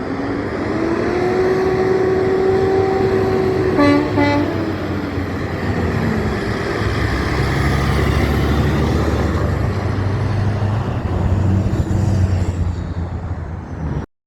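A passing truck sounding its horn: one long blast whose pitch rises slightly and then falls away as it goes by, with a short choppy burst about four seconds in. After that comes the heavy low rumble of a truck's engine passing close, which cuts off suddenly near the end.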